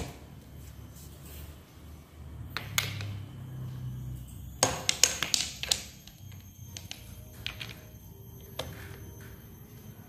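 Clicks, taps and knocks of the brush cutter's handle and fittings being handled and fitted onto the shaft. A quick run of sharp clicks about halfway through is the loudest part.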